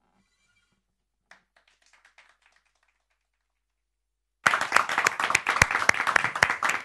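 Applause after a song: a few faint handclaps at first, then loud clapping that starts suddenly a little past four seconds in.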